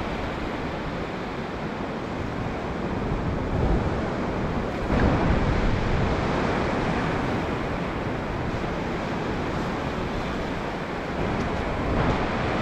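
Surf washing onto a sandy beach, a steady rush of waves that swells louder about four and five seconds in and again near the end, with wind buffeting the microphone.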